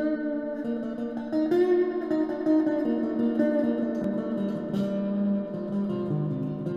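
Electric guitar playing an ambient instrumental: plucked notes and chords ringing into one another, with short repeated low notes coming in over the second half.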